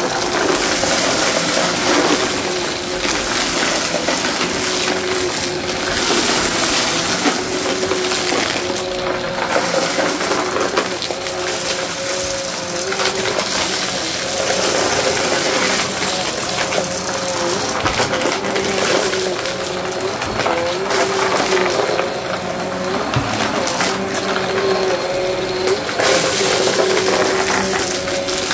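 Vacmaster vacuum running over carpet: a steady motor hum with two held tones, overlaid by the dense crunching rattle of small hard bits of debris being sucked up.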